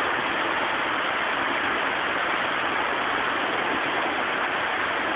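Heavy rain with storm runoff rushing down a street in a flash flood: a steady, even rush of water noise.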